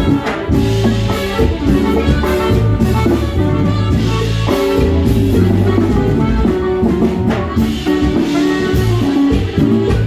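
Live norteño band playing dance music, with a steady beat from drums and bass under a horn melody.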